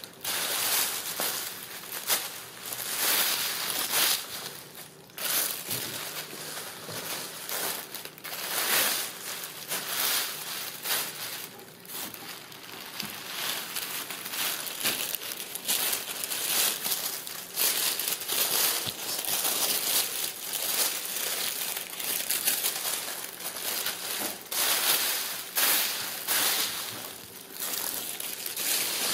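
Crumpled brown paper crinkling and rustling in irregular bursts as a kitten plays in it and a hand stirs it.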